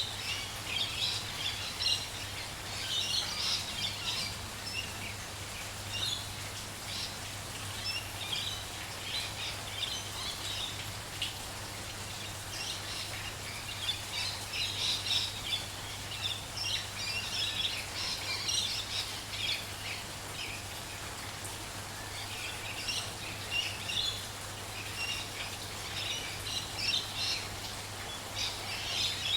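Several small birds chirping and singing in quick, high bursts that come and go in clusters, over a steady hiss of light rain.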